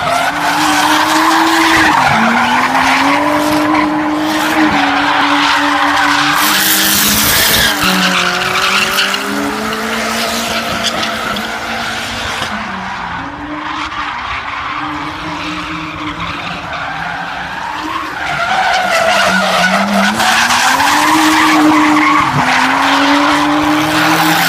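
A car engine revving up and down hard while its tyres squeal and skid, as in a drifting or burnout display. The engine note dips and climbs several times and is quieter for a few seconds around the middle.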